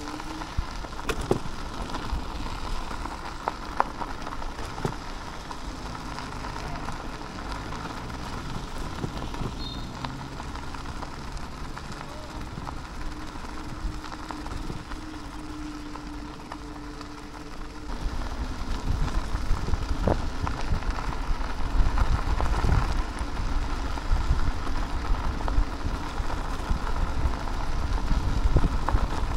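Teverun Blade GT II electric scooter being ridden: steady tyre and road noise with a faint motor hum. About eighteen seconds in, a louder low rumble takes over.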